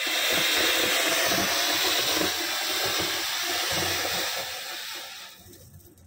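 Ground firework fountains spraying sparks with a steady hiss that dies away about five seconds in.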